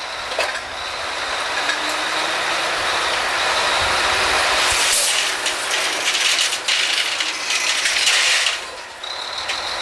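Drilling rig machinery running loud on the rig floor during a pipe connection: a steady hissing, rushing mechanical noise with scattered metal clicks and clanks, building over the first seconds and easing off near the end.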